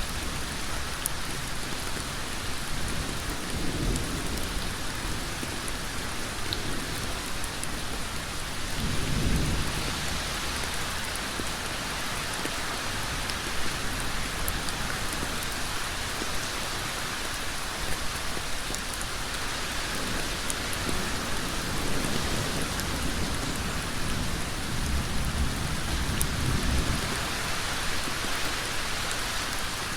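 Heavy rain falling steadily on a road, an even hiss. Soft low rumbles swell up a few times: about 4 and 9 seconds in, and again in the second half.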